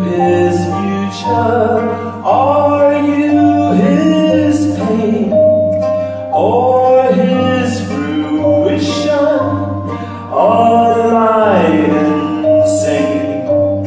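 Live stage music: voices singing long, held phrases that swell and fall, several notes sounding together, over a steady low bass accompaniment.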